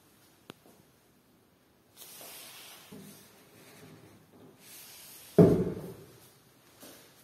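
Faint rustling and scraping, then one loud thump about five and a half seconds in that dies away over about half a second, with a small click near the end.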